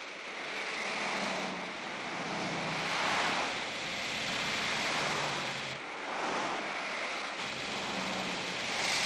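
Freeway traffic at speed: a steady rush of car noise that swells and fades every second or two as vehicles pass.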